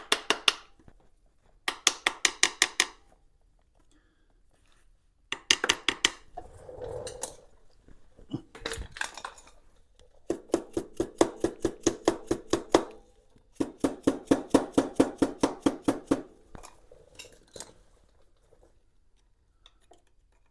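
Hand ratchet clicking in several quick bursts of even, metallic clicks while the cylinder-head cover bolts are backed out, with a single knock about nine seconds in.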